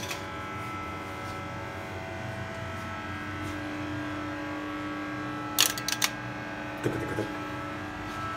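Hydraulic elevator power unit running steadily: its electric motor and pump drive oil through the newly fitted OMAR valve block while the car rises. A few sharp clicks come about five and a half to seven seconds in.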